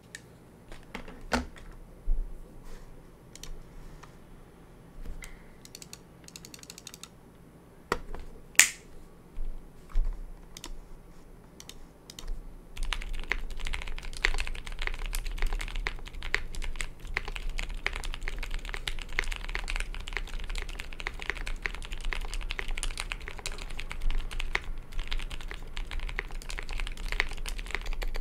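Mechanical keyboard with Zealios V1 65g tactile switches and GMK Eclipse keycaps (Gray Studio Space80 Apollo). Scattered single keystrokes come first, then from about halfway through a steady run of fast typing.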